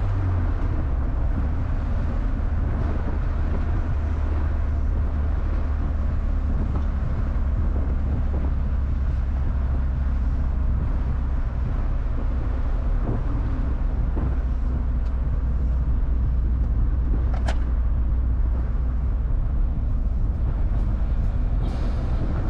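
A 1988 Mitsubishi Starion Turbo driving, heard from inside the cabin: its 2.6-litre turbocharged four-cylinder engine runs steadily under a constant rumble of road and tyre noise. The engine note changes just at the start, with a hand on the gear lever for a gear change, and a single light click comes about three-quarters of the way through.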